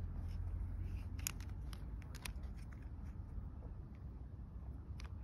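Small sharp clicks of a wiper blade's plastic adapter clip being worked with a small pointed tool, a run of about six between one and two and a half seconds in, over a steady low rumble.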